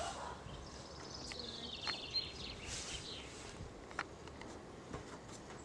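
Faint birdsong: a bird's rapid trilling phrase lasting a couple of seconds, with a sharp click or two later on.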